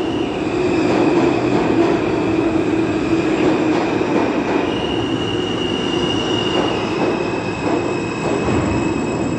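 R160A subway train pulling into the station along the platform, with a loud, steady rumble of wheels on rail and high, thin wheel squeal as it slows.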